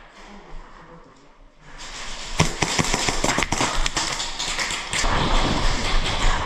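Airsoft guns firing: quiet for about two seconds, then a fast run of sharp snaps and knocks, with more scattered snaps over a louder noisy stretch near the end.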